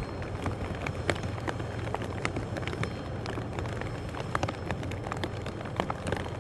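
Airbus A380's four Engine Alliance GP7200 turbofans running as the aircraft rolls past: a steady low rumble of jet noise, broken by many irregular sharp crackles.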